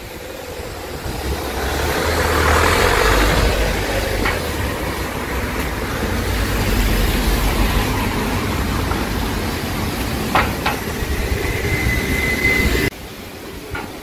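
Strong typhoon wind gusting and buffeting the microphone with a deep rumble, swelling about two seconds in. A couple of sharp knocks are heard, and a brief steady high tone comes near the end before the sound cuts off suddenly.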